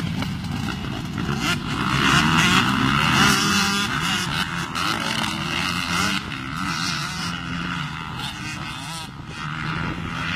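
Several motocross dirt bike engines revving as the bikes race round the track, the pitch rising and falling with the throttle. Loudest about two to four seconds in.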